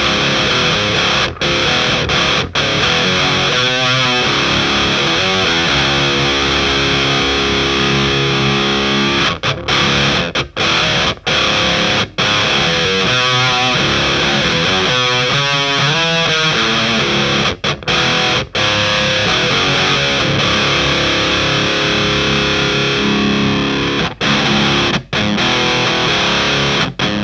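Electric guitar played through an HM-2-style distortion pedal (a DIY clone of the Boss HM-2, the 'Swedish chainsaw' tone): heavily distorted riffing with brief sharp stops, and a held chord about six seconds in.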